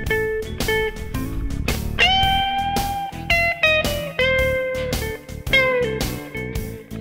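Background music: a guitar-led track over a steady drum beat, its lead notes sliding in pitch.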